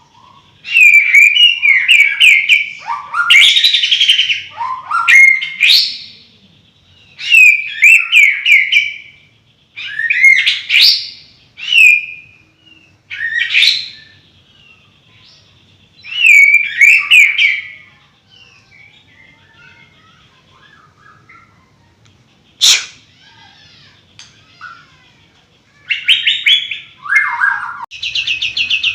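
A songbird singing loud, varied whistled and warbled phrases in bursts of a second or two, with a quieter stretch of faint chirps past the middle. Near the end a fast, buzzy trill starts.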